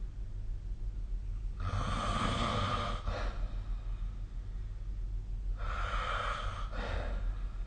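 A sleeping person snoring: two long, rasping breaths about four seconds apart, each trailing off in a shorter puff, over a steady low hum.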